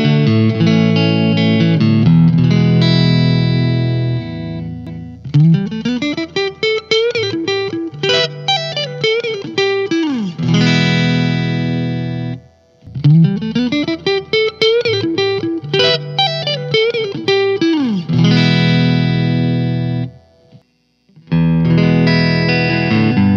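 Clean electric guitar, a Squier Classic Vibe Jazzmaster through the clean channel of a Mesa Boogie Fillmore 25, close-miked at the speaker. Ringing chords alternate with runs of single notes that climb and fall in pitch, and the playing breaks off briefly about halfway through and again near the end.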